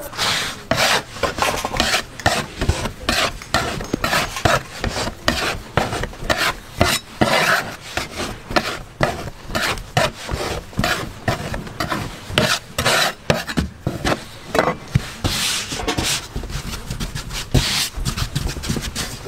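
Repeated rasping, scraping strokes, about two a second and unevenly spaced.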